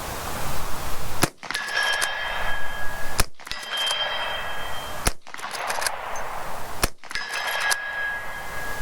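Four shots from a Marlin 1894 lever-action rifle firing .38 Special, about two seconds apart, each followed by a metallic ringing ding that lasts a second or more.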